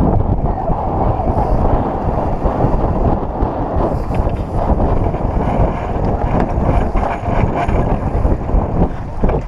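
Strong wind buffeting the microphone of a sailing yacht under way: a steady, heavy rushing noise, with a few faint light clicks.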